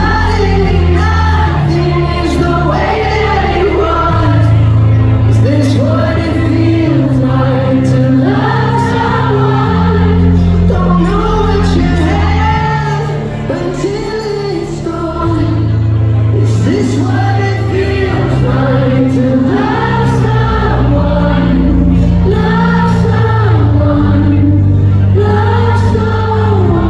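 Live concert music: a band with a loud, steady bass line under sung melody, with many voices singing along.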